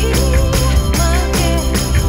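Bossa-lounge pop music with a steady beat and a melodic line.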